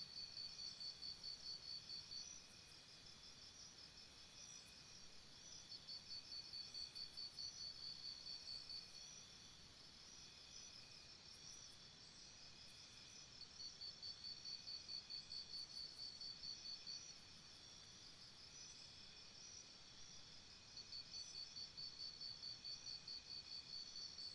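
Faint jungle morning ambience: a steady high chorus of insects, over which a pulsed, trilling call of about five pulses a second comes in bouts of two to three seconds, four times.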